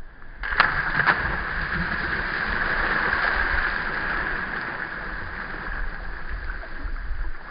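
People splashing in shallow seawater: two sharp splashes about half a second in, then steady splashing and churning water.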